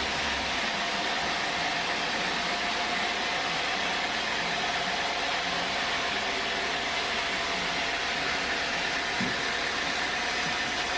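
Sawmill machinery running steadily: an even mechanical noise with a constant whine held at one pitch.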